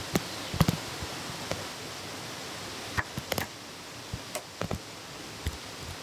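Green bamboo poles knocking and clacking as a bamboo railing is fitted together by hand: a scattering of short, sharp knocks, the loudest about half a second in, over a steady rushing background noise.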